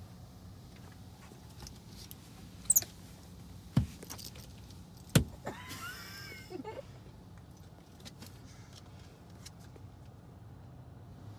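Automatic car wash heard from inside the car's cabin: a steady low rumble, broken by a few sharp knocks and short squeaks in the middle.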